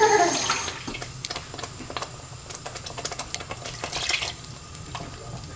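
Water poured into a pot of thick pea and potato curry gravy, loudest right at the start, then stirred in with a wooden spoon, making liquid splashing and light clicks and scrapes against the pot.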